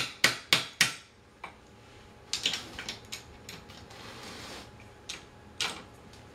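Metal tool clicking and clinking against a wheelchair caster's fork and axle bolt: four sharp clicks in the first second, then scattered lighter clicks and a brief rattle.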